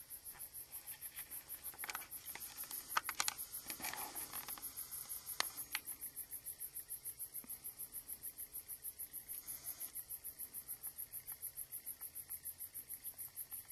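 Cricket chirping steadily in a high, even pulse of about six chirps a second. A few sharp clicks cut in, a cluster about two to three and a half seconds in and one more at about five and a half seconds.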